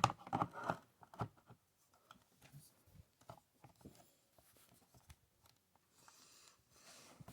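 Light handling noise as the Stream Deck XL is fitted onto its magnetic stand: a few clicks and taps in the first second and a half, then faint scattered ticks.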